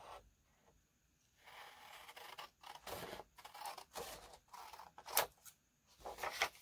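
A sheet of decorative paper rustling as it is handled, lifted and turned over by hand, with a few sharper crackles, the loudest about five seconds in.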